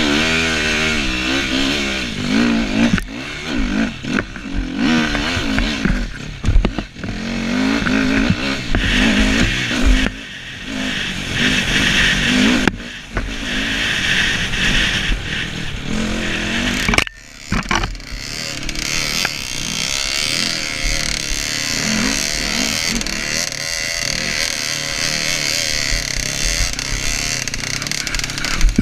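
Dirt bike engine revving up and down as it is ridden, with wind noise on the microphone. About seventeen seconds in the sound breaks off briefly and resumes with the engine running more steadily.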